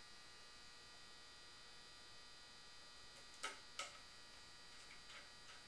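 Near silence with a faint steady electrical hum. Two short clicks about three and a half seconds in, with a few fainter ticks near the end, from a screwdriver driving small star-headed screws into metal scope mount bases.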